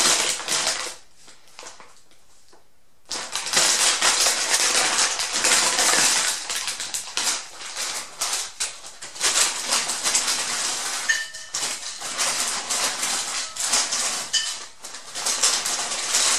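Plastic-foil bag of Lay's potato chips crinkling and crackling as it is handled and opened, in uneven bursts, with a pause of about two seconds near the start.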